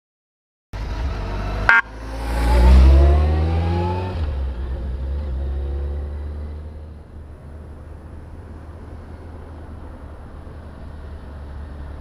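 Kawasaki Concourse 14 motorcycle's inline-four engine running, with a short beep about two seconds in. The engine then revs up briefly, rising in pitch, and settles back to a steady low idle.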